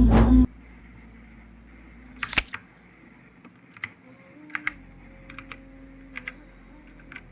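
Music cuts off about half a second in. Then keys on a Machenike K500A-B84 mechanical keyboard are pressed slowly, one at a time: sharp clicks, mostly in pairs, the loudest pair about two seconds in and a click or pair about every second after.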